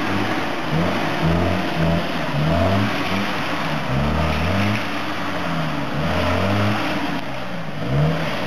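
Small 4x4's engine revving up and falling back over and over, about once a second, as it works under load through a muddy ditch.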